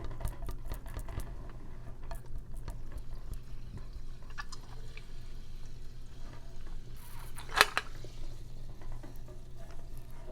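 Close-miked eating sounds: small wet clicks and mouth noises, with one short, loud, noisy sound a little past the halfway point, over a steady low hum.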